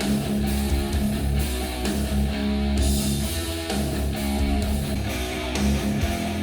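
Guitar-led music with strong bass and a steady beat, played through Edifier powered bookshelf speakers and picked up by microphones in the room.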